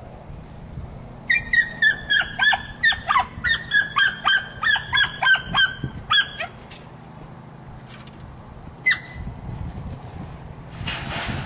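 A rapid run of about twenty short, high animal calls, each falling in pitch, lasting about five seconds, then one more call a couple of seconds later.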